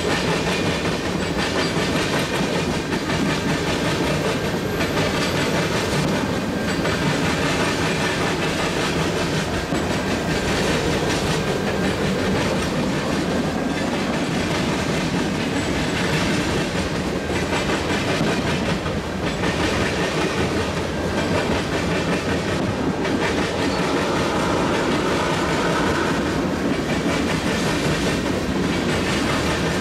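Freight cars rolling past at steady speed, a continuous rumble and rattle with wheels clicking over rail joints.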